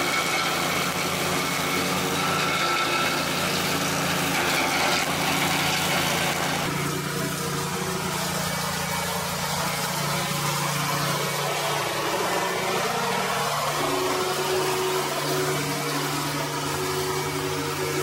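Combustion engine of an agria 9500 remote-controlled track mower running steadily under load while it mows and mulches tall grass and brush. The tone shifts about seven seconds in.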